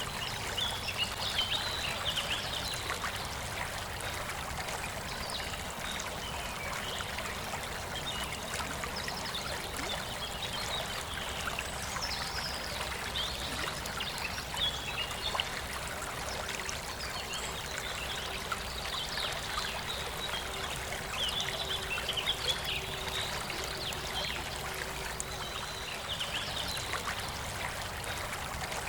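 A forest river flowing steadily with an even rushing and trickling, while small birds chirp and sing in short phrases every few seconds.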